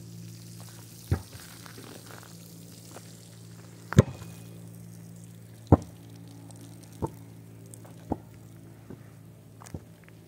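A series of sharp knocks at uneven intervals, one to three seconds apart, six in all, the loudest two in the middle, over a steady low hum.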